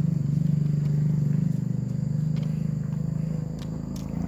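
An engine running steadily with a low, fast, even pulsing, and a few faint clicks near the end.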